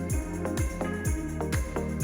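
Background music with a steady beat: a deep kick drum dropping in pitch on each beat, a little over two beats a second, under sustained notes.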